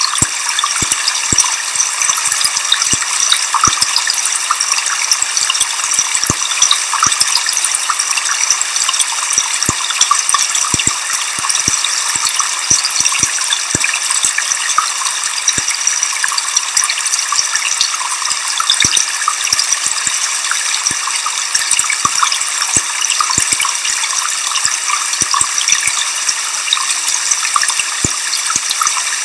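Waterfall noise running steadily, a hissy rush with little low rumble, with small sharp clicks scattered through it.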